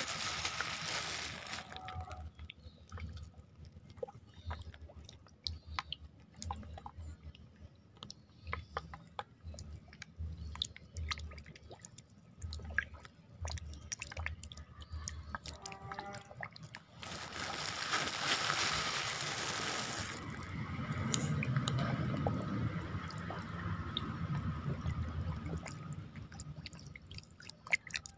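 White catfish feeding on pellets at the pond surface: many small wet pops, slurps and drips as they gulp food from the water, with two louder stretches of water noise, one at the start and one a little past the middle.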